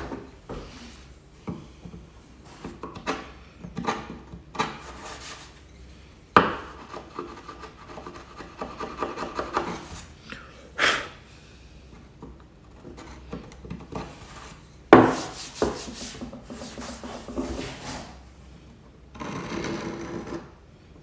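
A hand tool scraping and rubbing on the wood of an old door in irregular strokes, with a few sharper scrapes, working old glue out of a stile joint.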